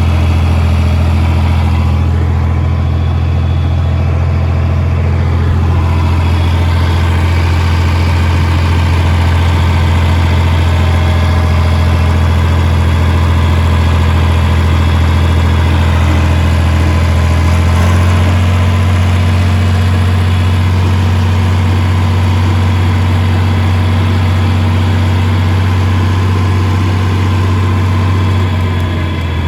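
Farm tractor engine running steadily, its pitch stepping up slightly about two-thirds of the way through and holding there.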